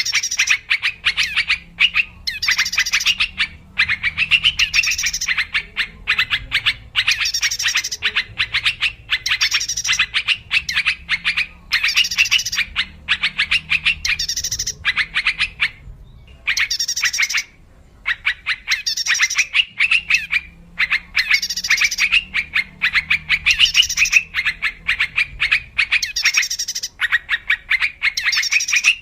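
Yellow-vented bulbuls calling on a bird-lure recording: phrases of rapid chattering notes, each about a second long, follow one another with short breaks, over a faint low hum.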